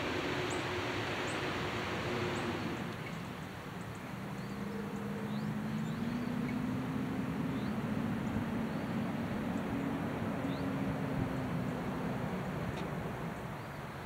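Outdoor ambience: brief high chirps of small birds scattered throughout, over a low vehicle hum; a passing vehicle's hiss fades about three seconds in.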